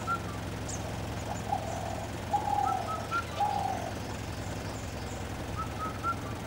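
Birds calling over the steady low hum of an idling vehicle engine. A short three-note phrase comes twice, near the middle and near the end, and several longer, lower calls come in the first half.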